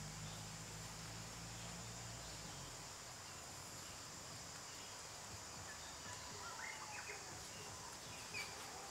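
Quiet outdoor ambience: a steady high-pitched insect buzz, with a low hum that stops about three seconds in and a few faint chirps near the end.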